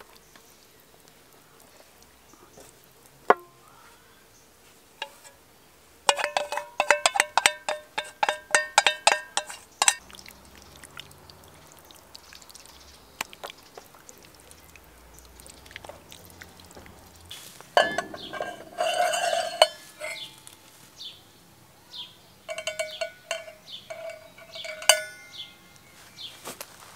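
Hands rubbing marinade into a raw whole chicken on an enamel plate, with bursts of rapid clinking and ringing from the plate: one about six seconds in, a louder one past the middle, and another near the end.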